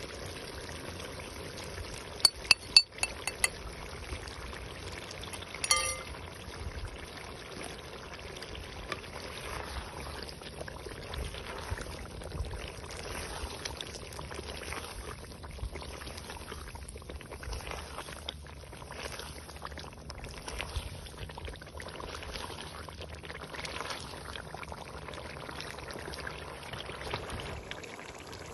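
Chicken karahi bubbling and sizzling in a large aluminium pot. A few sharp clinks against the pot come about two to three seconds in, and a short ringing clink comes near six seconds.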